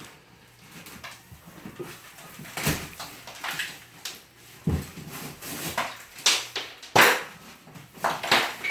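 Irregular knocks and scrapes as a basement wall is being opened up and its pieces handled, with the sharpest knock about seven seconds in.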